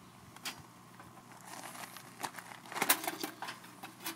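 Crinkling of a bag being handled and light knocks and clicks as pieces of firewood are set into a stainless-steel fire pit, the loudest click about three seconds in.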